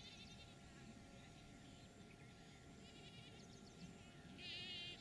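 Near silence, with faint high-pitched chirping trills now and then, a little louder near the end.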